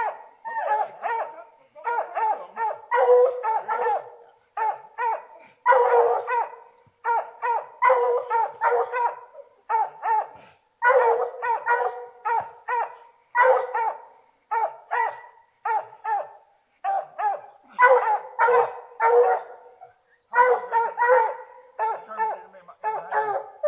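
Hunting hounds barking at a bear up a tree, in quick runs of several barks with short pauses between.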